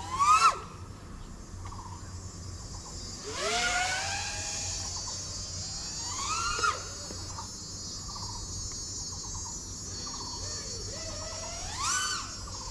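A 5-inch FPV quadcopter's brushless motors whine while armed on the ground. The throttle is blipped several times, each a rising and falling whine: a short loud one at the start, then others about 3.5, 6.5 and 12 seconds in.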